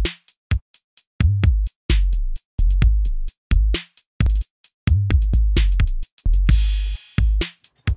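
Electronic background music with a heavy drum beat: deep bass-drum thumps and sharp high hits, played stop-start with short silences between them.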